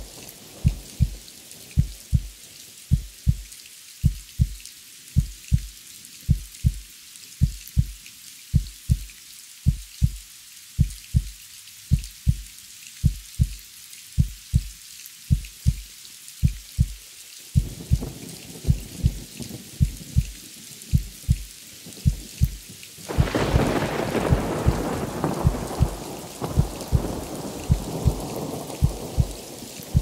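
Heartbeat sound effect, a steady double lub-dub thump about once a second, over steady rain. Low rumbling builds about two-thirds of the way through, then a loud thunder rumble swells in near the end and slowly fades.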